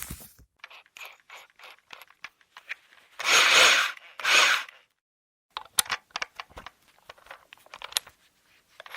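Screws being undone from a car's plastic center console trim: scattered small clicks and ticks of the tool and plastic, with two louder half-second noises about three and four seconds in.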